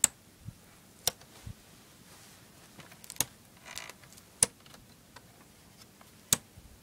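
Plastic CED disc caddies clacking against one another as they are tipped forward one at a time by hand, five sharp clacks a second or two apart, with a brief sliding rustle in the middle.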